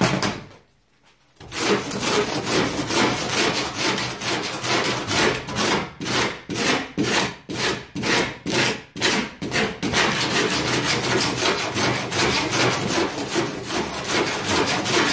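A toothed hand tool is rasped back and forth across the cut end of rigid foam insulation board, shaving the stern of a foam kayak flat. The strokes are quick and steady, and stand out one by one for a few seconds in the middle.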